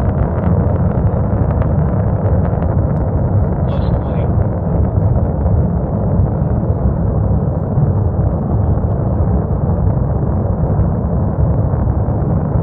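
NASA SLS five-segment solid rocket booster firing in a static ground test: a steady, loud, deep rumble.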